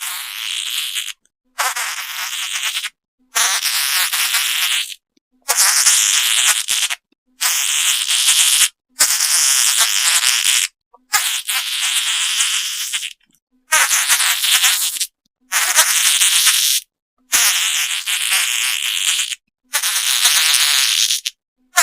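A run of about a dozen separate fart sounds, each one to two seconds long, high and thin with little bass, cut apart by short gaps of dead silence.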